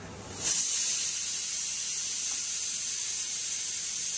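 A steady hiss, like steam, from the stovetop. It starts suddenly about half a second in and holds at an even level.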